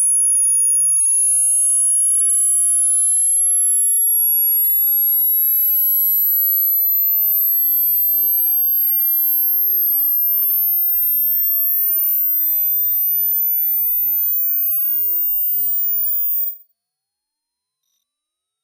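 A very high-pitched pure sine test tone sweeping slowly upward in pitch, then cutting off suddenly near the end. It is the top of a hearing-test frequency sweep, in the high range that older ears stop hearing.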